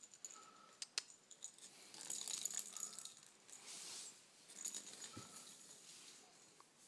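Small green toy ball rattling and clicking as it rolls and skitters across a tile floor after being batted by a cat. The run of clicks is busiest about two to three seconds in and again near five seconds.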